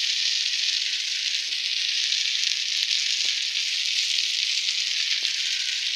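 A steady high hiss of water, unchanging throughout, with a few faint clicks.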